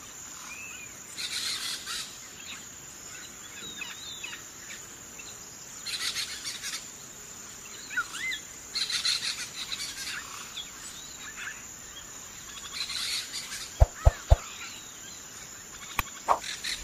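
A whiteboard marker dragged across paper in several short scratchy strokes, with small birds chirping in the background and a steady high-pitched hiss. About fourteen seconds in, three sharp clicks close together.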